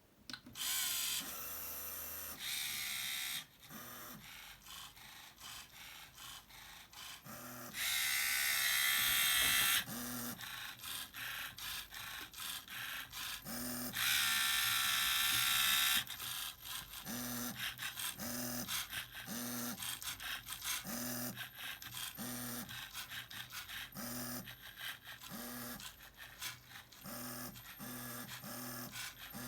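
Lego Mindstorms printer's electric motors and plastic gears whirring in bursts. Several longer whirs of one to two seconds come first, the loudest two near the middle. Then a regular run of short whirs follows, about three every two seconds, as the machine steps along.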